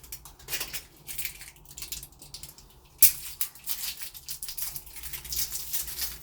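Batteries being handled and pressed into the smart lock's plastic battery compartment: irregular small clicks and rattles, with one sharp snap about three seconds in.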